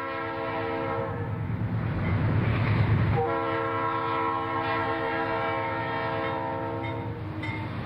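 Air horn of a Conrail diesel freight locomotive sounding two long blasts, each a chord of several notes, with a short break about three seconds in. Under the horn is the low rumble of the lead locomotives passing close by, loudest just before the second blast.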